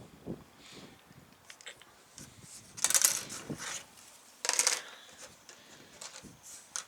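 Plastic model-kit sprues and their plastic bags being handled: light clicks, with two louder crinkling rustles about three and four and a half seconds in.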